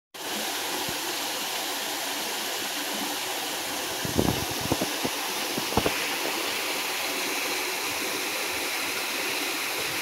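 Small garden waterfall splashing into a pond, a steady continuous rush of water. A few soft low thumps sound about four to six seconds in.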